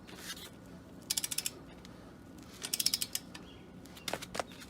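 A 1/2-inch drive ratcheting torque wrench clicking in two quick runs as it is worked back and forth on a lug nut, then two sharper clicks near the end as it reaches its set torque. The nut sits on a wheel stud whose threads the owner believes were damaged by a shop's impact gun.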